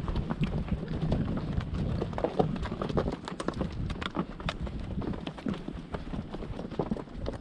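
Hoofbeats of a horse being ridden: irregular knocks over a steady low rumble.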